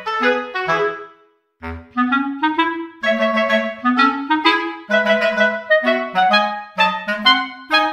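Background music: a melody of short, quick pitched notes that breaks off about a second in and resumes after a low thump.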